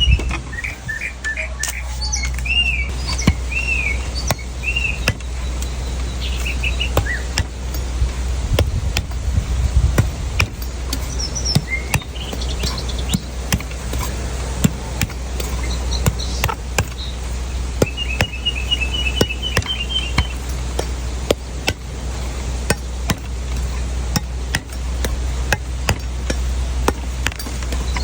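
Knife strikes cutting into a coconut: sharp irregular chops and taps throughout. Birds chirp in the background near the start, and a short rapid trill comes about two-thirds of the way through, over a steady low hum.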